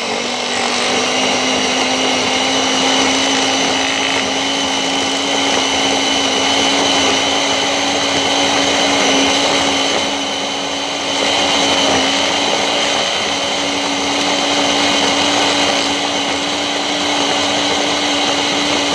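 Ninja Ultra Prep food processor's power-pod motor running steadily, its blades churning a thick mix of butter, sugar and egg. It holds one steady motor tone whose pitch creeps up slightly in the first seconds, and it dips briefly in loudness about midway.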